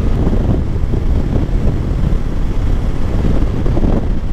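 Suzuki V-Strom 800 DE's parallel-twin engine running steadily under way, with wind rushing over the microphone.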